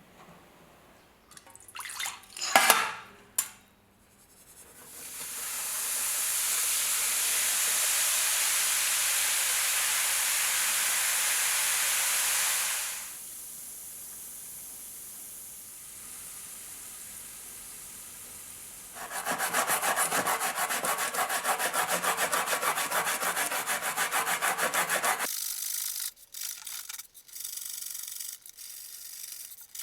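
Hand work on a rusty pocket knife: a few sharp clicks, a steady hiss lasting several seconds, then fast back-and-forth rubbing strokes like scrubbing or sanding metal, and more scattered clicks near the end.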